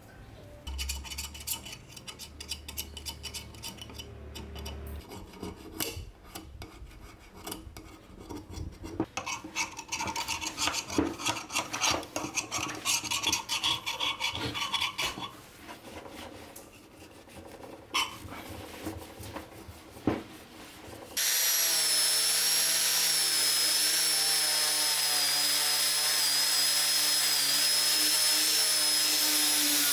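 Hand rubbing and scraping on the rusted metal of an old storm lamp, irregular strokes with scattered clicks. Near the end a small electric power tool starts suddenly and runs steadily with a high whine.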